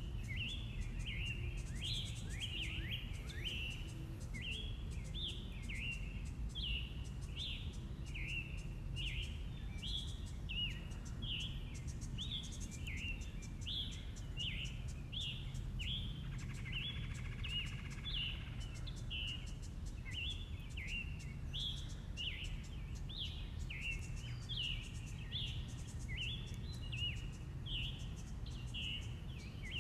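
Birds chirping in a steady stream of short, falling chirps, about two a second, over a low steady rumble.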